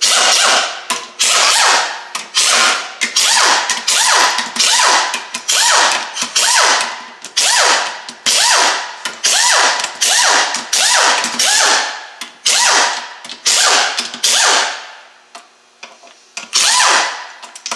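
Power ratchet backing out the bolts of an automatic transmission's valve body, running in short repeated bursts about one and a half a second, then pausing briefly before a few more near the end.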